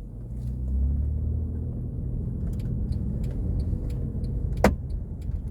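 Mercedes-Benz E-Class W212 driving, heard from inside the cabin: engine and road rumble as it pulls away, then a few light ticks and one sharp crack about four and a half seconds in. The ticks and crack are the rattle and creak from the panoramic sunroof, which the mechanic looks for as interference between the sunroof rail and the frame.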